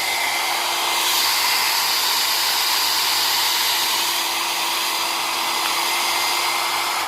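Nova hand-held hair dryer running, a steady loud rush of air with a faint steady whine from its motor.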